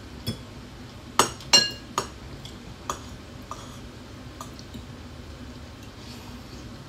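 Metal forks and spoons clinking against ceramic bowls during a meal: a string of sharp clinks, the loudest pair about a second and a half in, ringing briefly.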